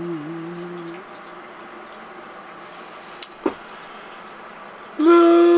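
A man singing long wordless held notes. One note dips slightly and stops about a second in. After a quieter stretch with a faint hiss and two small clicks, a loud new note starts near the end and is held steady.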